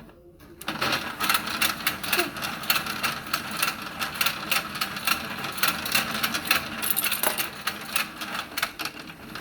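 Battery-powered toy fishing game running, its motor-driven turntable and gears giving a rapid, steady clicking rattle that starts abruptly about a second in.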